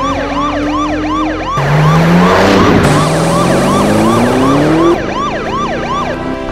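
Police siren, a fast yelp rising and falling about two to three times a second, with a car engine revving up and rushing past in the middle, loudest from about one and a half to five seconds in.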